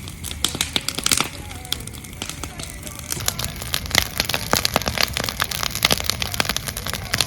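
Wood fire crackling and popping, irregular sharp snaps, with music faintly underneath.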